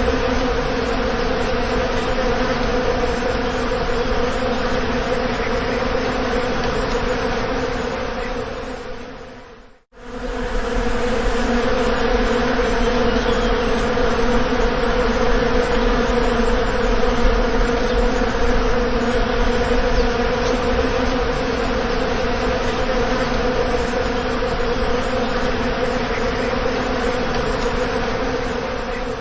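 Bees buzzing in a steady, loud drone. It fades out about ten seconds in, cuts back in, and fades again at the end.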